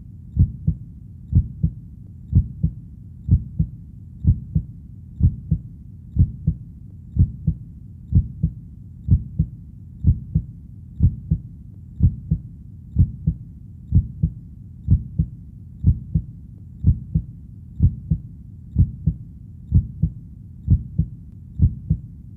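Heartbeat sound: steady paired low thumps (lub-dub), about one beat a second, over a faint low background rumble.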